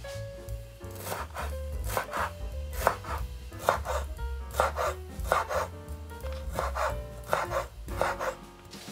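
Chef's knife chopping fresh dill on a bamboo cutting board: repeated blade strikes on the wood, mostly in quick pairs, starting about a second in and stopping near the end.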